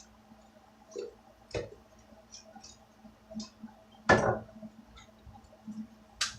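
Scattered small clicks and knocks of metal hardware being handled as a nut is fitted onto a bolt through the wooden workbench frame, with one louder knock about four seconds in.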